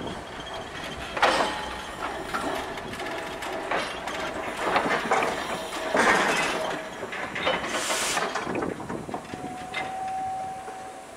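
Railroad turntable turning Denver & Rio Grande Western K-37 steam locomotive No. 493 and its tender: irregular clanks, knocks and rumbling from the turntable and rails, with a brief steady tone near the end.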